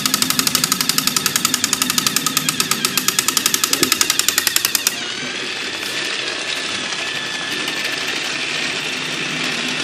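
Battery-powered toy train: a fast, even clicking of about nine a second for the first five seconds, then a steady motor whine as the train runs along plastic track.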